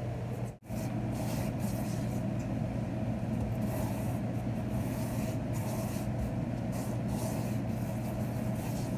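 Hands sweeping granulated sugar across a silicone baking mat: repeated gritty swishes over a steady low hum.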